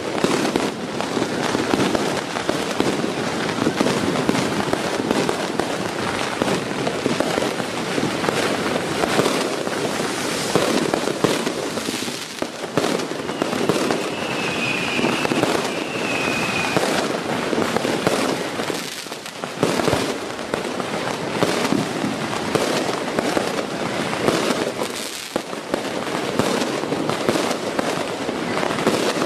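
Massed Chinese New Year firecrackers and fireworks going off in a dense, continuous barrage of rapid cracks and bangs, with a brief high whistle about halfway through.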